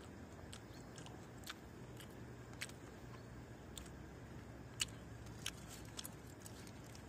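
A person chewing a mouthful of sandwich: faint, sharp little clicks about once a second over a faint low hum.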